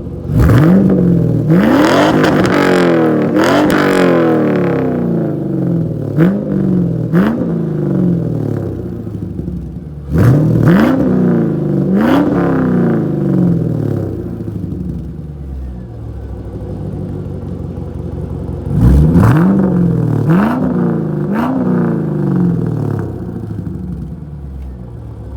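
1999 Camaro Z28's LS1 V8 breathing through an SLP Loudmouth II exhaust with gutted catalytic converters, revved in repeated quick blips, each falling back to idle. The revs come in clusters of two to four: a burst right at the start, another a little before halfway, and one more about three-quarters through, with the engine idling between them.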